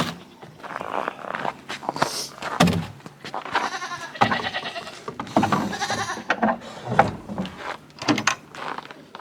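Nigerian Dwarf goats bleating loudly, several long drawn-out calls one after another: the goats screaming for their morning hemlock. A few short knocks and clicks in between.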